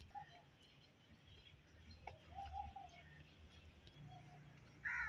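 Birds calling faintly: a few short calls spaced out, with a louder, higher call near the end.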